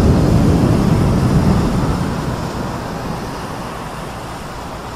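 Thunder rolling over steady heavy rain. A loud, deep rumble fills the first two seconds, then slowly dies away, leaving the rain's even hiss.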